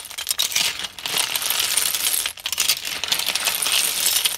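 Sikad-sikad sea snail shells clattering against each other and the metal wok as they are stirred with a spatula: a dense run of hard clinks, with a short break about two seconds in.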